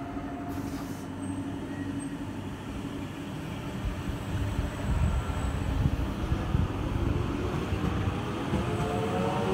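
Stadler ABe 4/12 low-floor electric multiple unit running under the overhead line: a steady hum and low rumble that grows louder in the middle. Near the end a whine rises in pitch as the traction motors pick up speed.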